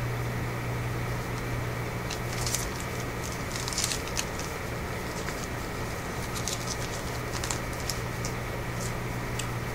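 Light scattered clicks and ticks of chrome trading cards being handled and sorted, over a steady low hum.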